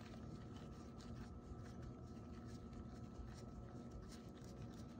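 Faint light rubbing and small ticks of fingers turning a small hex fitting by hand as it threads into the brass air valve of a Benjamin 397S air rifle, over a faint steady hum.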